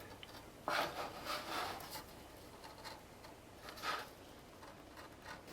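Paper gasket material being cut by hand, with faint scratchy rubbing and rustling in short spells, about a second in and again near four seconds in.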